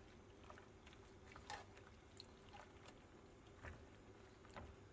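Faint wet squelching of a spatula stirring cream through penne in a pot, with a few soft scrapes and clicks of the utensil against the pot.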